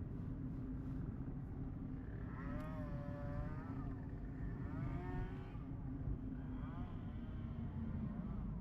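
Low steady road rumble inside a moving Nissan Note e-Power, with three short wavering high-pitched tonal sounds about two, five and seven seconds in.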